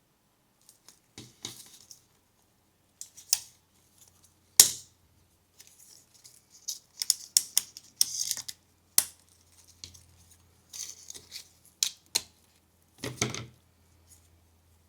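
Workshop handling of metal hand tools and parts: irregular clicks, clinks and short scrapes, with one sharp knock about four and a half seconds in as the loudest sound.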